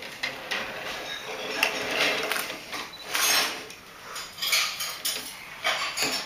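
Plastic toy bricks and a small toy train clicking, rattling and scraping on a wooden table as they are handled and pushed along.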